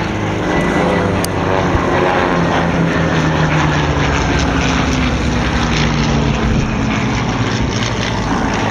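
Piston engine of a WW2 propeller fighter flying past, its engine note sliding down in pitch as it goes by.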